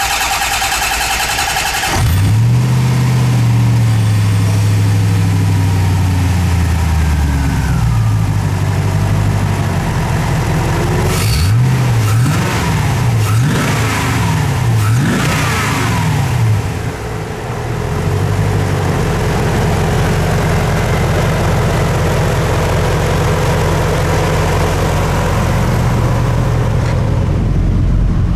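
A Corvette ZR1's LT5 5.7 L four-cam 32-valve V8 is cranked by its starter and catches about two seconds in. It comes down from a fast idle, is blipped several times about halfway through, and then idles steadily.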